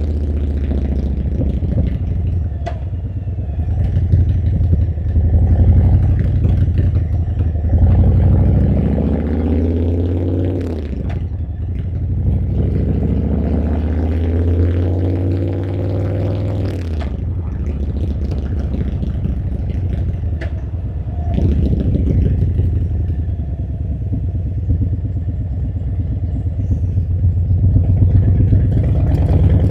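Harley-Davidson Milwaukee-Eight V-twin motorcycle engine under way, its note climbing as it accelerates and dropping as it slows, several times over. A strong low rumble runs beneath it.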